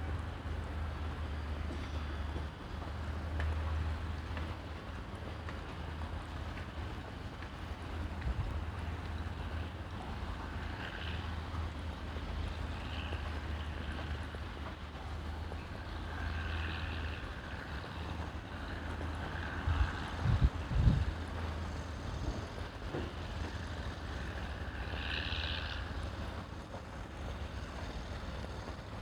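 Outdoor ambience dominated by a steady low rumble of wind on the microphone, with a few louder gusts buffeting it about two-thirds of the way through and some faint, brief sounds in the distance.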